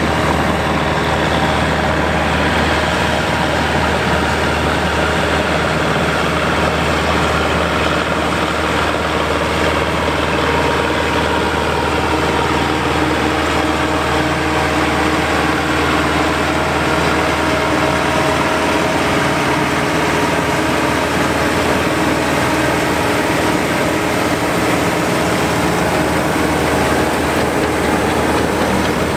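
John Deere 3020 tractor running steadily under load, driving a John Deere 9501 pull-type combine through its PTO as it threshes wheat: a constant engine drone blended with the combine's threshing and separating machinery.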